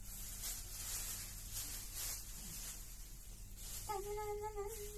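Clear plastic sheet rustling and crinkling in a series of swishes as it is spread out by hand. Near the end a voice holds a steady note for about a second.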